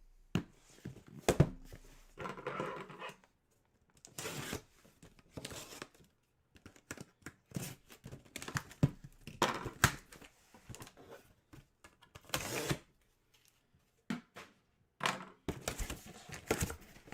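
Packaging being handled and torn open: irregular tearing and crinkling of wrapping, with knocks and clicks as a mystery box of hockey jerseys is opened.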